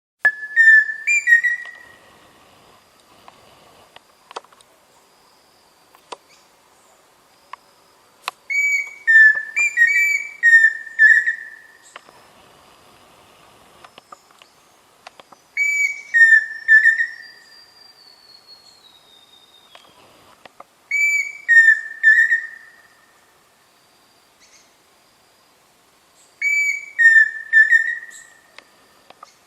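Pheasant cuckoo singing: five phrases of three or four clear whistled notes, the later notes slurring and wavering. The phrases repeat every five to eight seconds.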